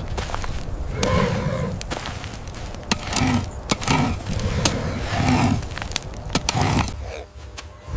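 Repeated effortful grunts and heavy breaths from a hominin, with sharp knocks as a wooden digging tool strikes hard, dry ground.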